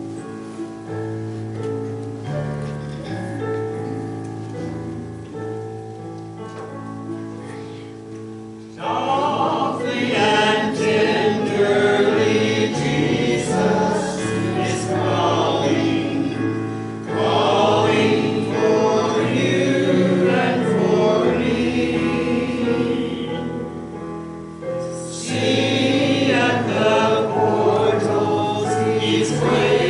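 Church congregation singing a hymn with keyboard accompaniment. A keyboard introduction plays first, and the voices come in about nine seconds in, pausing briefly between phrases.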